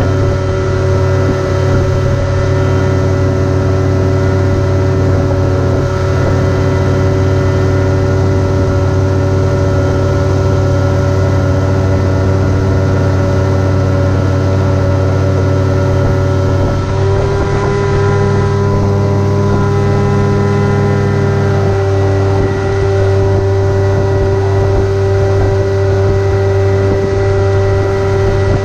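Outboard motor of an aluminium jon boat running steadily at speed. Its pitch steps up slightly about seventeen seconds in.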